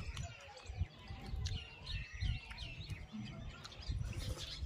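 Small birds chirping in quick series of short, curving calls, busiest in the middle stretch, over low, irregular eating noises.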